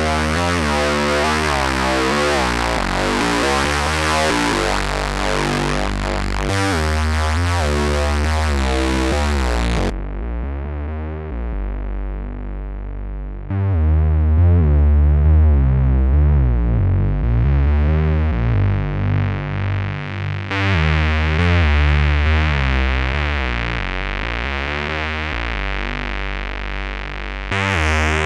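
Korg Monologue synthesizer playing a repeating acid-style bass sequence through a Boss drive pedal. Its sound turns dull about ten seconds in as the filter closes, then brightens in steps as it opens again, and is fully bright near the end.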